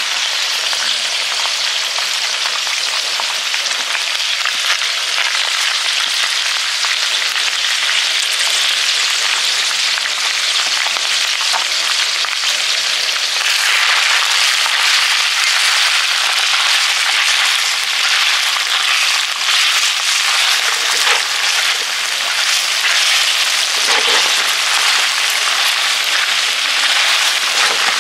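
Chicken livers and sliced mushrooms sizzling as they fry in a stainless steel pot: a steady crackling hiss that grows a little louder about halfway through.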